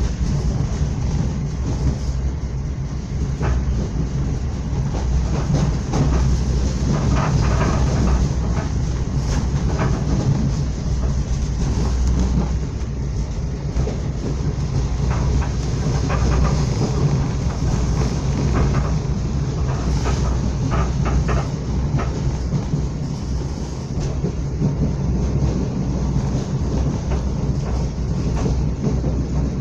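Passenger train running along the track, heard from inside the carriage: a steady low rumble of wheels on rail, with scattered clicks as the wheels pass over rail joints.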